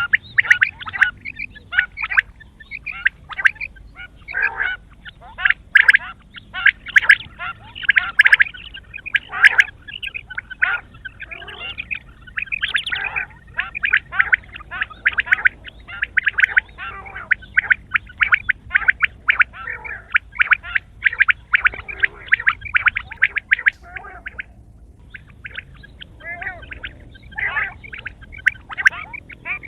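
Quail calling: a dense, fast run of short chattering calls, with a brief lull about two-thirds of the way through.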